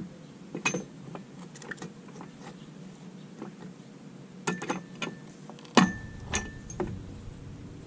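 Homemade no-weld pallet breaker of metal square tubing prying a pallet board: a string of sharp knocks and metallic clanks of the bar against wood and nails, some with a brief metal ring, the loudest a little under six seconds in.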